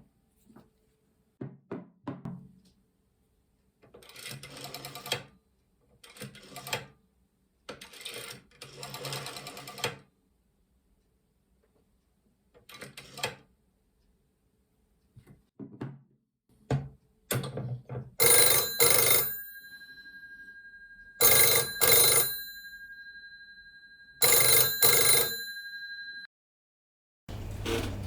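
1935 Kristian Kirks dial telephone: clicks and several short mechanical rattling runs from the set, then its bell rings three times in loud bursts about three seconds apart. The gongs go on sounding after each burst and die away after the third.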